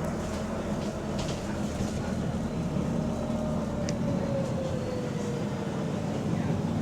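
Double-decker bus heard from inside the saloon while moving: a steady low engine and drivetrain hum, with a whine that slowly falls in pitch through the middle, and a few light rattles from the body.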